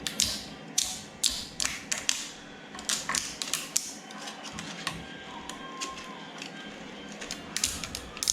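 A freshly 3D-printed plastic part being pried off its printed raft: a run of irregular sharp clicks and cracks as the raft snaps and peels away.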